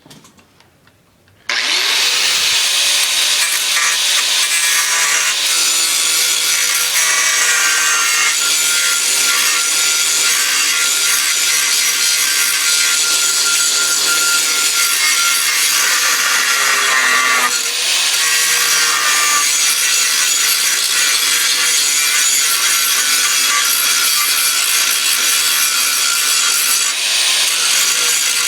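Grinder grinding down a fresh weld bead on the car's metal. It starts abruptly about a second and a half in and runs loud and steady, easing off briefly about two-thirds of the way through before biting in again.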